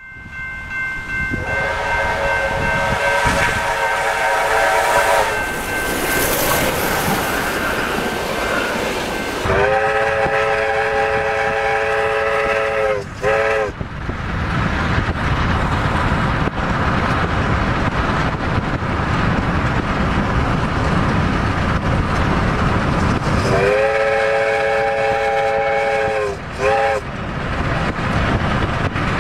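Steam locomotives running at speed with a steady rush of exhaust and rail noise and long whistle blasts of several tones at once. A first long blast sounds in the opening seconds. Victorian Railways R-class Hudson R761 then gives two more long blasts, each ending in two short toots, about ten seconds in and again near the end.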